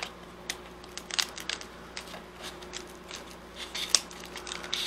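Shattered glass back panel of an iPhone 4 being picked and pried at with a thin metal tool: irregular small clicks and crunches as the glass cracks and chips off, the sharpest click about four seconds in.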